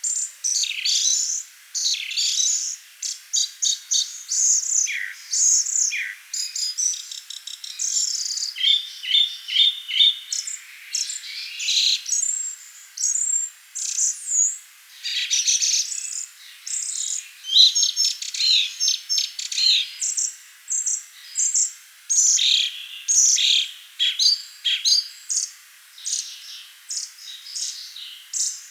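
Forest songbirds singing, with many overlapping chirps, quick trills and short downward-sweeping calls, one after another without a break.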